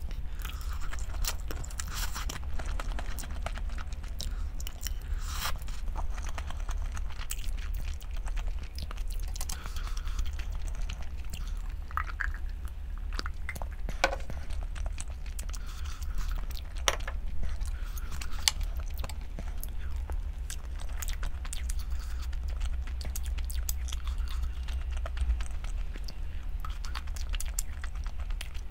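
Close-up eating sounds: chewing and biting, with scattered crisp crunches and small clicks throughout, over a steady low hum.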